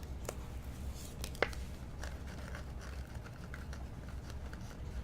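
Faint handling of trading cards: light rustling and scraping with a few small clicks, the sharpest about a second and a half in, over a low steady hum.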